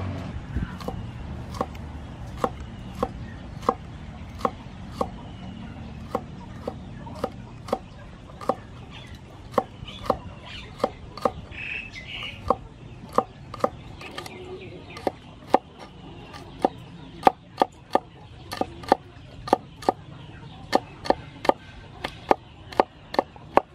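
Cleaver chopping long beans on a wooden cutting board: sharp, even knocks of the blade on the wood, about three every two seconds.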